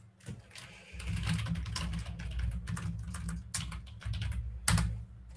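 Typing on a computer keyboard: a quick run of key clicks, several a second, with one sharper, louder keystroke near the end, over a low steady hum.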